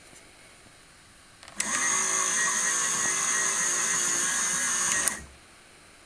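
Small electric motor of a vintage Casdon toy Hoover Electron 1100 washing machine running with a high whine, starting abruptly about a second and a half in and cutting off after about three and a half seconds.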